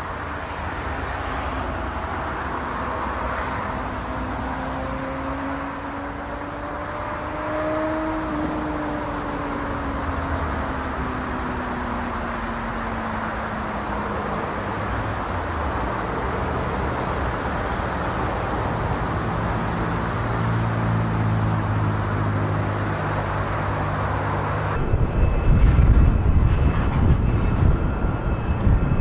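Twin-engine jet airliner landing: steady jet engine noise with a whining tone that rises slightly and then falls away as it touches down, the engine noise growing louder during the rollout. About 25 seconds in the sound cuts abruptly to another approaching jet, with heavy wind rumble on the microphone.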